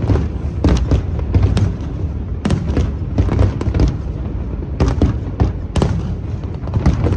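Fireworks going off in quick succession: many sharp bangs and crackles over a continuous low rumble.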